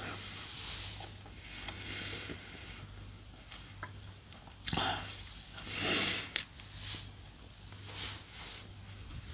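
A person breathing out heavily in several noisy puffs through the nose and mouth, the loudest about six seconds in, over a steady low electrical hum.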